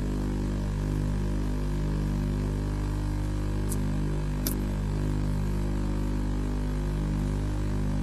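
Steady electrical mains hum with a hiss over it, the kind heard on a webcam feed's audio, with two faint clicks a little under a second apart near the middle.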